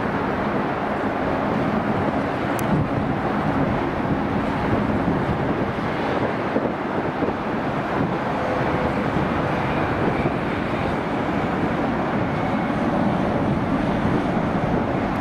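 Four GEnx-2B turbofans of a Boeing 747-8F freighter in reverse thrust during its landing rollout: a steady, even rush of jet engine noise.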